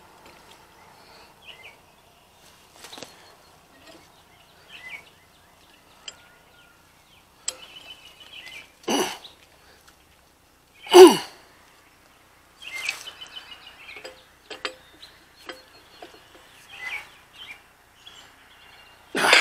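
Scattered knocks and scrapes of a frost-free yard hydrant's head and handle being worked by hand on the standpipe, with two louder thumps about nine and eleven seconds in. Birds chirp faintly in the background.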